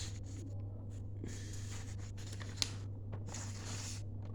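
Pen scratching on paper in short strokes, with a single click partway through, over a steady low hum.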